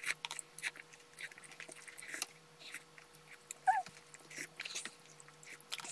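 Close-up eating sounds: udon noodles being slurped and chewed, with short wet smacks and sips of broth. A brief high squeak a little past halfway through is the loudest sound.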